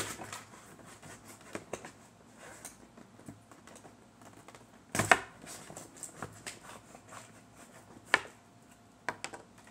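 Stiff plastic blister packaging being cut open and handled: irregular crinkling and clicking, with sharper cracks of the plastic at the start, about five seconds in and about eight seconds in.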